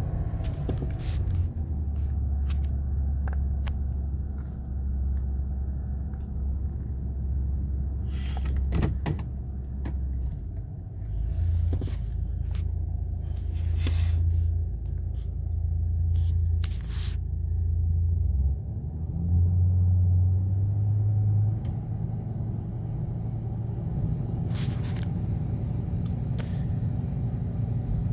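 Ford 6.8-litre V10 engine running steadily during a power balance test for a misfire, its low rumble changing in steps several times as the test goes from cylinder to cylinder. A few short clicks are heard over it.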